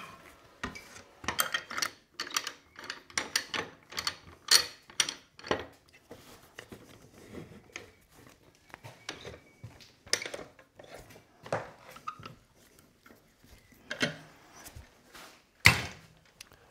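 Metal scroll-chuck jaws being opened and closed with a chuck key, with irregular clicks, rattles and knocks as a wooden stool-seat blank is taken off the stopped lathe, turned round and clamped back on. A single loud knock comes near the end.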